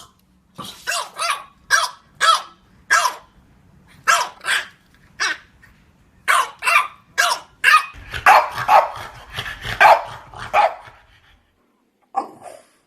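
French Bulldog barking: a string of short, fairly high barks at irregular spacing, closer together from about 8 to 11 seconds in, then a pause and one more bark near the end.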